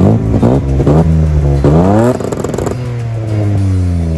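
Straight-piped Mercedes M104 straight-six engine revving hard, with quick rises in pitch and a big one just before two seconds in. Then it turns quieter and the pitch falls slowly as the engine slows down.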